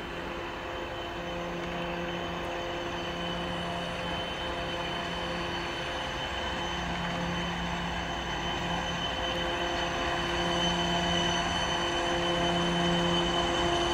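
BR232 'Ludmiła' diesel-electric locomotive's 16-cylinder diesel engine running as it approaches: a steady drone with a low note that comes and goes every second or two, growing gradually louder.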